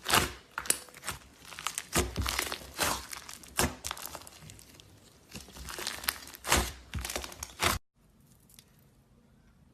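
Slime being squished and stretched by hand, making irregular crackling, popping clicks that stop abruptly near the end.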